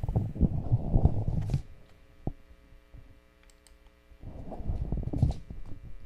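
Muffled low rumbling and knocking close to a desk microphone, in two stretches, with a single sharp click between them.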